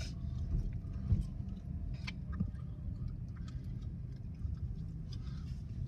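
Low, steady rumble of a car driving slowly, heard from inside the cabin, with a few faint clicks.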